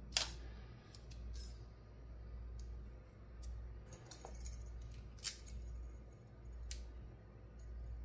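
Scattered small metallic clicks and taps from a 5-pin rim lock cylinder and hand tools being handled, with two sharper clicks, one just after the start and one about five seconds in, over a low steady hum.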